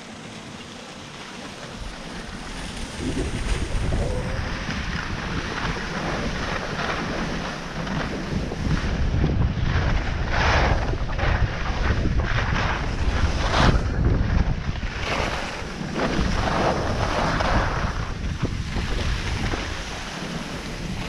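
Wind rumbling on the microphone of a skier's camera while skiing downhill, with the hiss and scrape of skis turning on groomed snow that swells now and then. The rumble builds about two seconds in as speed picks up.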